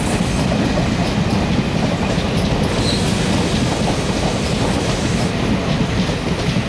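Passenger train running past on the track: a steady, loud noise of its coach wheels on the rails.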